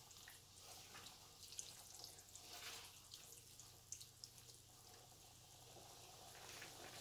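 Faint wet sounds of a wooden spoon stirring spaghetti through hot, steaming tomato sauce in a pan, with scattered soft irregular ticks and pops.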